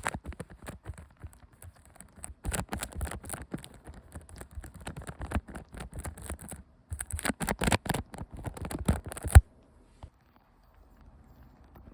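Close-up makeup application sounds: cosmetic tools rubbing, scratching and tapping against a camera lens in quick irregular strokes. They stop abruptly about nine and a half seconds in.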